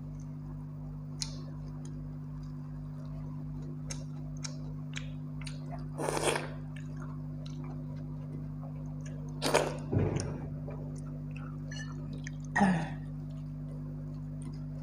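Eating pakhala, rice soaked in water, by hand: light ticks of fingers working the wet rice on a steel plate, and a few louder wet smacks of mixing and chewing about six, nine and a half, ten and twelve and a half seconds in, over a steady low hum.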